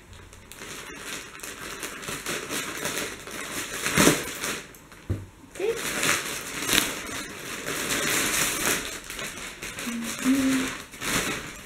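Plastic mailing bag crinkling and rustling as it is cut open with scissors and handled, with a few sharper crackles along the way.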